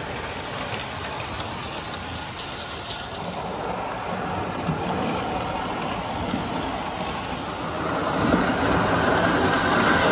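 O gauge model diesel locomotive pulling tank cars on three-rail tinplate track: a steady rolling rumble of wheels and motor with faint clicks over the rail joints, getting louder about eight seconds in.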